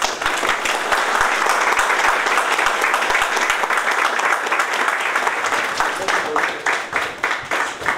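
A roomful of people applauding with dense hand claps, the clapping growing sparser and more separate near the end.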